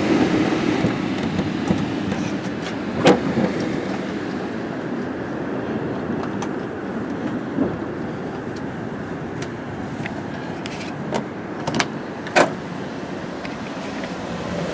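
Strong wind howling around an RV camper, heard from inside through a slightly open window: a steady rush almost like a running fan. A few sharp knocks and ticks cut through it, the loudest about three seconds in and again near the end.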